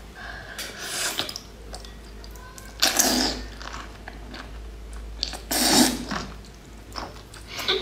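A person slurping a whole cooked octopus tentacle into the mouth: noisy sucking bursts about one, three and six seconds in, the last the loudest.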